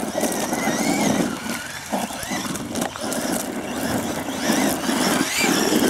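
Electric motor of a Traxxas E-Revo RC monster truck whining up and down with the throttle as it drives over loose gravel, with the crunch and spray of tyres on stones and a few sharp knocks.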